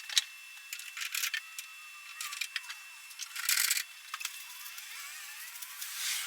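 Irregular clicks, clinks and rattles of hardware and parts being handled, with a few short rustling bursts.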